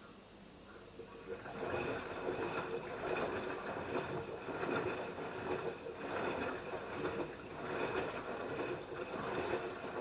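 LG F10B8QD1 direct-drive front-loading washing machine mid-wash: after a pause of a second or so, the drum starts turning and water and laundry slosh and tumble in repeated surges.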